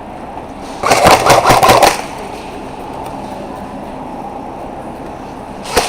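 Airsoft gun firing a rapid full-auto burst about a second long, about a second in, then another short burst near the end.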